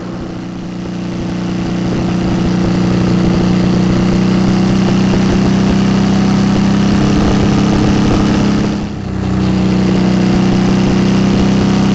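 2008 Suzuki V-Strom 650's V-twin engine through its Delkevic aftermarket exhaust under way, getting louder over the first few seconds as it pulls, then dropping off briefly about nine seconds in before picking up again.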